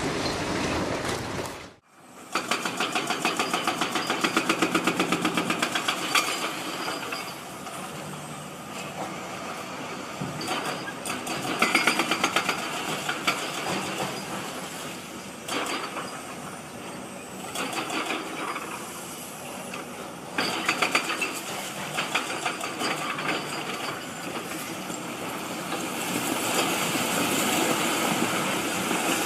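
Heavy machinery engines running through a series of short demolition clips, with a stretch of fast, regular knocking near the start.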